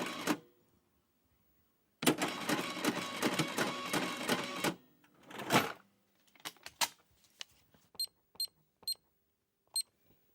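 Card payment terminal: a thermal receipt printer rattles out a slip for nearly three seconds, followed by a short rasp, a few small clicks and four short, high keypad beeps spaced unevenly near the end.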